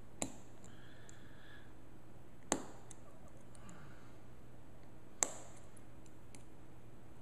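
Three sharp metallic clicks a couple of seconds apart from a small screwdriver tip working against the steel M1 carbine bolt, as it is pressed down on the extractor plunger to free the extractor.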